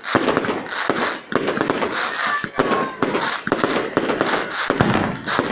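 Aerial fireworks bursting overhead in rapid succession: a dense run of sharp bangs, with a hissing crackle from the glittering star bursts about once a second.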